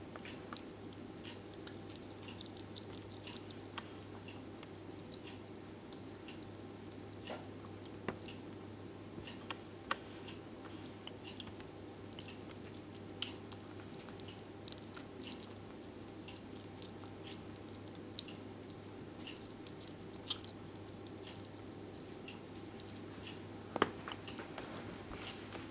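Slow loris chewing and nibbling banana: soft, irregular little wet clicks and smacks, faint, over a steady low hum.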